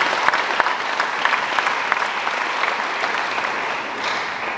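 Audience of students applauding, a dense patter of clapping that gradually dies away near the end.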